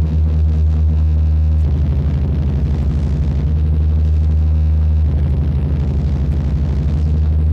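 Death industrial noise music: a loud, low electronic drone made of several steady humming tones. It starts to throb rapidly about a second and a half in and settles back into a steady drone after about five seconds.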